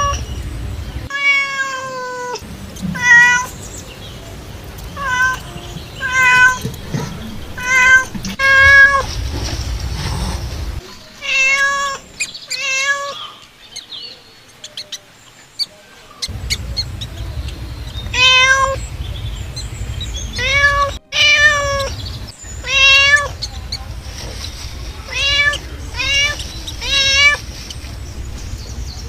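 A cat meowing over and over, short calls each bending in pitch, about every second or two; the title has the cat fallen into a well.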